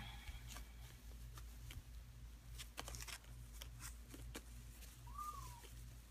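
Kittens moving about: faint scattered clicks and scuffs, and a single short kitten mew, rising then falling in pitch, about five seconds in, over a low steady hum.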